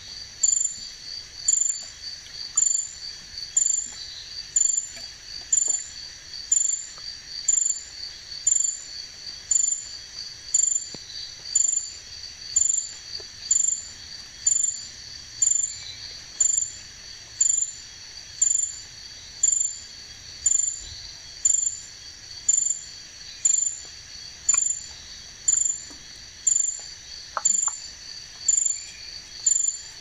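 Night insect chorus: a steady high trill of crickets, with one louder, higher insect chirp repeating evenly about once a second.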